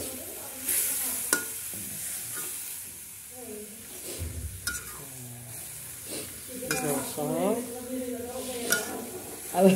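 Metal spatula stirring and scraping grated chayote and spices around a wok over a steady frying sizzle, with repeated clicks of the spatula on the pan. The cook remarks that the mixture is scorching ('gosong').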